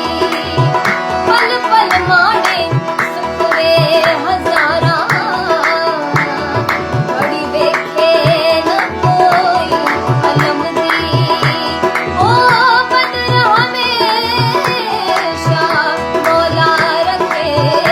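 A woman singing a Hindi song in winding, ornamented runs, accompanied by tabla playing a steady beat over a sustained drone.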